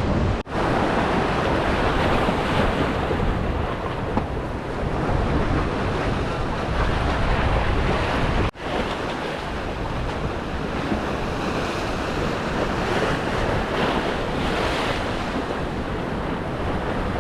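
Ocean surf washing around the jetty with wind buffeting the microphone, a steady rushing noise. It drops out sharply and briefly twice, about half a second in and about eight and a half seconds in.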